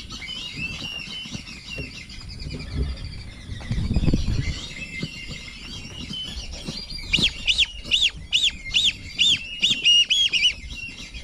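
Whistling ducks calling: a busy chatter of high whistles, then from about seven seconds in a run of loud, clear rising-and-falling whistles, about three a second. A low rumble about four seconds in.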